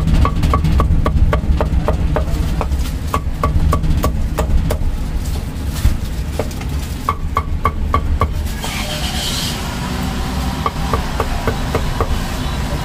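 Meat cleaver chopping roast pork on a thick wooden chopping block: quick runs of knocks, about five a second, each with a short metallic ring, broken by short pauses. A brief rustle about nine seconds in, over a steady low background rumble.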